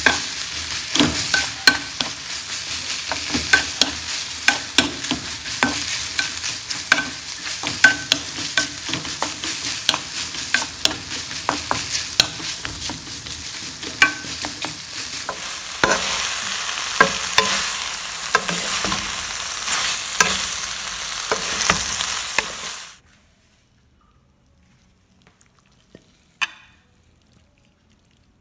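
Squash and black fungus mushrooms sizzling in a hot pan while a wooden spatula stirs them, with frequent short knocks and scrapes of the spatula against the pan. The sizzling cuts off suddenly about 23 seconds in, leaving near silence with a faint clink or two.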